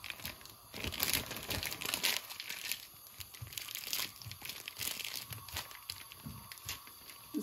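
Plastic cheese wrapper crinkling as a block of cheddar is rubbed against a stainless steel box grater, with irregular scraping strokes of cheese on the grater's blades.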